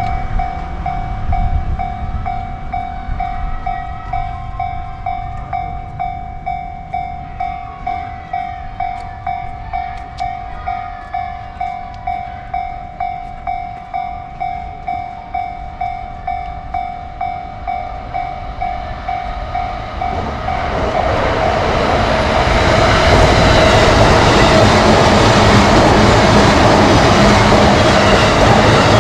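Japanese level-crossing alarm bell ringing, a steady, evenly repeated electronic ding. About two-thirds of the way in, a JR Keihin-Tohoku Line train arrives, and its loud passing rail noise rises and drowns out the bell.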